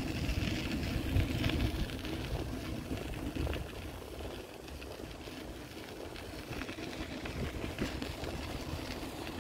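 Outdoor city ambience with a low engine rumble that is loudest in the first two seconds and then fades.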